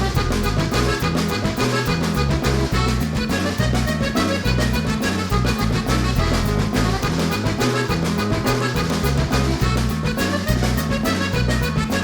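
Upbeat background music with a bouncing bass line, carried by an accordion-like lead.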